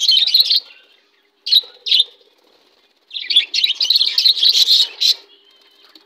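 Budgerigars chirping and chattering in a flock: a burst of chatter at the start, two short chirps around two seconds in, then a longer run of busy warbling chatter from about three to five seconds in.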